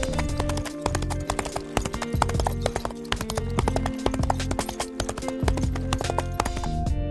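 Horse hooves clip-clopping in quick, uneven strikes over background music with a steady bass.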